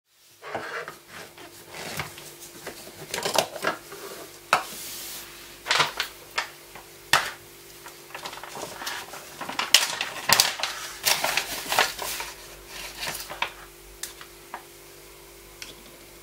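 Hard clear plastic BlenderBottle GoStak storage containers and pill boxes being handled, with many irregular clicks, knocks and short scrapes of plastic on plastic over a faint steady hum.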